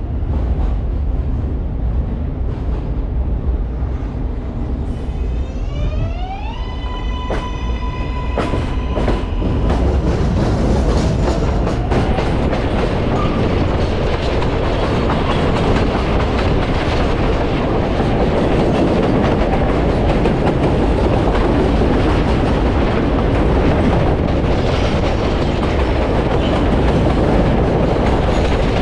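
New York City subway L train in motion: a whine from its electric traction motors rises in pitch about five seconds in, holds, and stops about nine seconds in. After that the wheels clatter and rumble steadily on the rails, louder as the train runs at speed.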